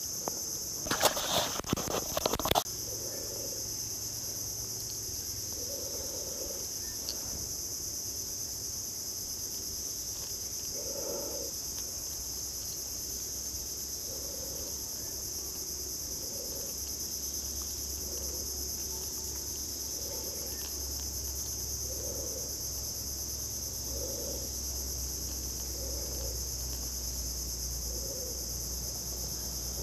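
Steady high-pitched drone of insects in tropical mangrove forest, two bands of continuous shrilling. A cluster of knocks and rustles in the first two or three seconds, then a soft low note repeating about every two seconds beneath the drone.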